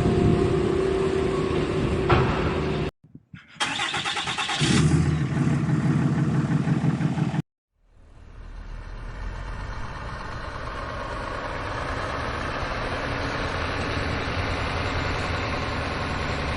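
Diesel engine of heavy earthmoving machinery running under varying load, heard in three separate stretches with abrupt cuts to silence about three seconds in and again past the middle. The first stretch has a steady hum. The second is rougher and louder. The last fades in and settles to a steady drone.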